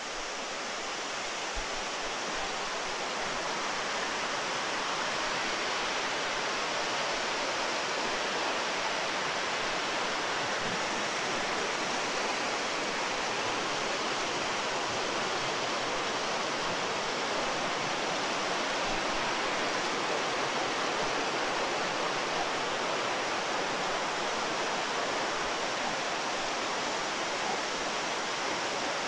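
Cascading water from nearby waterfalls, a steady, even rush of running water.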